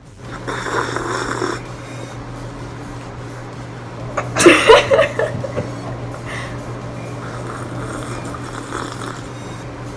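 A person deliberately drinking carbonated soda from a glass as noisily as possible, slurping and gulping. One loud, rough, throaty sound about four and a half seconds in stands out, with softer drinking noises around it.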